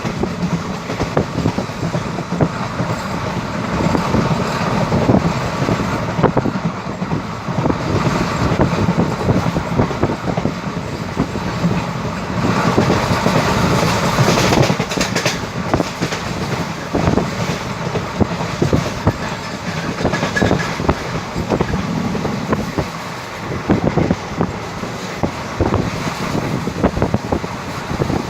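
Passenger coaches of an Indian Railways express train running past at speed: a continuous rumble with the wheels clattering and clicking on the track.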